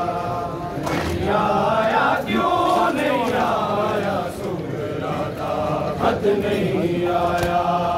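A Punjabi noha, a Shia lament, chanted by male voice in long, drawn-out melodic lines.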